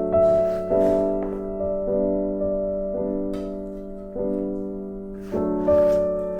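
Background piano music: soft, slow chords struck about once a second and left to ring.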